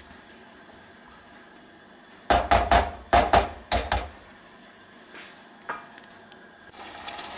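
Spatula and frying pan knocking together on a gas stove: a quick cluster of about eight knocks with a dull thud, midway. Near the end, tomato sauce starts sizzling in the pan.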